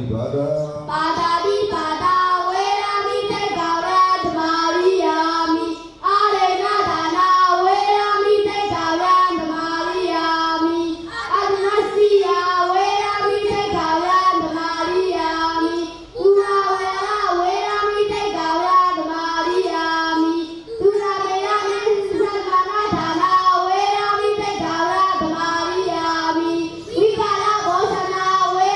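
Young Buddhist novice monks chanting a devotional verse into a microphone in high children's voices, a steady sung melody that breaks briefly for breath every several seconds.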